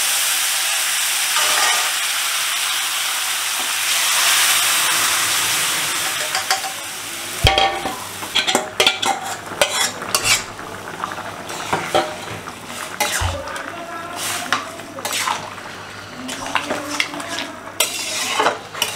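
Mung dal with bottle gourd poured into hot mustard-oil tempering in a kadai, sizzling loudly in a cloud of steam. About seven seconds in the sizzle eases, and a metal spatula clinks and scrapes against the pan as the curry is stirred.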